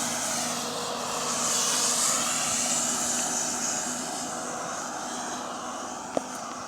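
A steady engine drone with a low hum and a broad hiss, slowly fading away, with a few faint clicks near the end.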